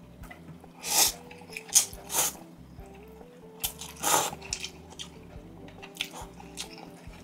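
A person eating instant noodles close to the microphone: several loud mouthfuls of eating and chewing noises in the first half, fainter ones after. Soft background music with a simple melody plays throughout.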